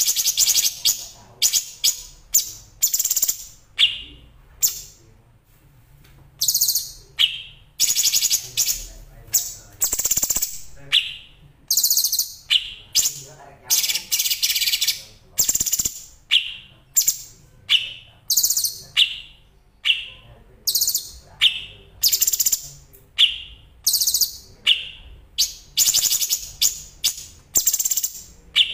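Recorded songbird song used as masteran (a tutor recording for training cage birds). It is made of short, rapid, high-pitched trilled bursts repeated about once a second, with a few longer runs.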